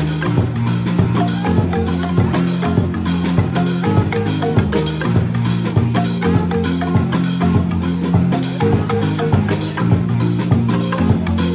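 Marimba band playing live: several wooden marimbas, with deep bass marimba notes under quick repeated melodic patterns, over percussion in a steady groove.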